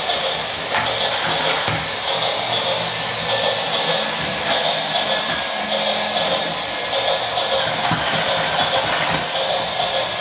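Battery-operated toy steam locomotive running across a tabletop: a steady whir and hiss from its motor and steam sound effect, with a few light clicks.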